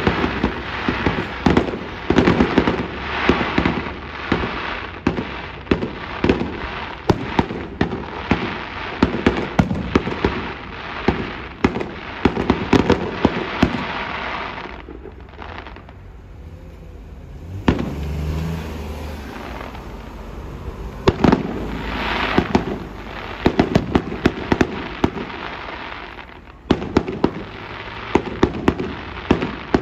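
Aerial fireworks display: dense rapid popping and crackling from crackle shells, with louder bangs among it. About halfway through it eases off for several seconds, then picks up again with more bursts and crackle.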